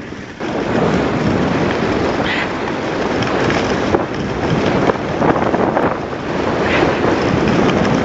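Wind rushing over the microphone of a camera carried by a skier heading downhill at speed, mixed with the hiss and scrape of skis on snow. The noise jumps louder about half a second in and stays loud.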